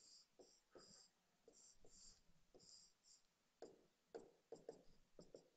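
Faint scratching and tapping of a stylus drawing short strokes on a tablet or touch screen, a series of brief strokes one after another.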